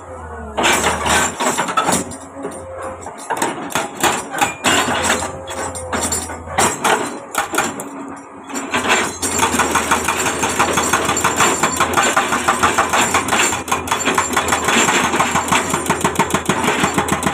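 Komatsu excavator at work: diesel engine running with a fast, rhythmic metallic hammering, uneven at first and settling into a steady pounding about halfway through.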